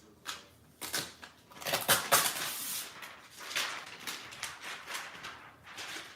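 Packaging and plastic parts being handled during an unboxing: uneven rustling, crinkling and light knocks, loudest about two seconds in.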